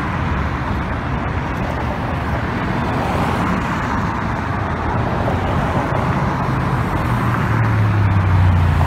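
Busy road traffic of cars, vans and scooters: a steady wash of engine and tyre noise, with a deeper hum growing louder near the end.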